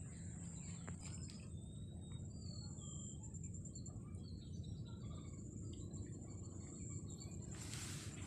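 Marshside ambience: a steady high-pitched insect drone with a few short bird chirps in the first few seconds, over a low wind rumble, with a brief rush of noise near the end.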